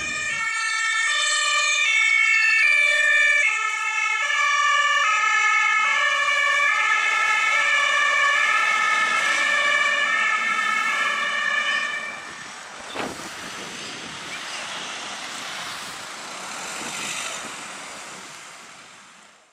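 Rescue ambulance's German two-tone siren (Martinshorn), loud and switching back and forth between its two notes, stops about twelve seconds in. Fainter street noise follows, with a single sharp click a second later, fading out at the end.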